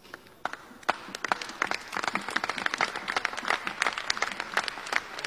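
Applause from a group of senators: many hands clapping irregularly, starting about half a second in and filling out within a second or so.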